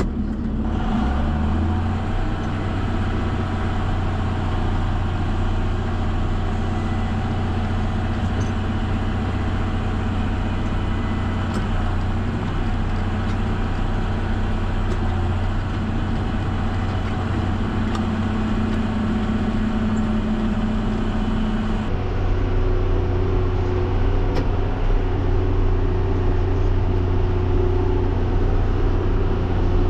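John Deere 7510 tractor's six-cylinder diesel engine running steadily under load, pulling a round baler through hay. The tone shifts a little about 22 seconds in.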